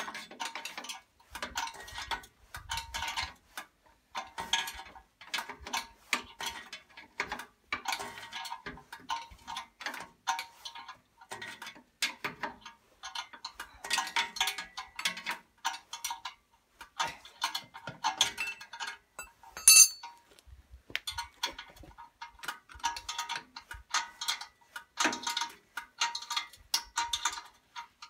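Ratchet wrench clicking in quick runs of about a second each, with short pauses between, as bolts are worked during reassembly under a tractor. One sharp, ringing metallic clink comes about twenty seconds in.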